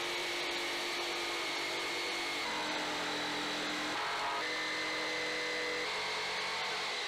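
Corded orbital jigsaw cutting through a laminated birch-strip glulam board, its motor running steadily with the blade's pitch stepping up and down a few times as the load changes along the curve.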